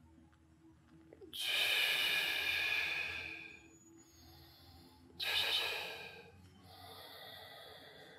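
A man breathing forcefully in time with a lying leg-raise exercise. There is a long loud breath about a second in, a shorter one about five seconds in, and a softer one near the end.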